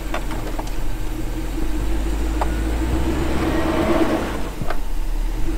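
2008 Hummer H3 Alpha's 5.3-litre V8 running steadily under load as the truck struggles through deep snow with a trailer in tow, swelling slightly about three and a half seconds in, with a few light clicks.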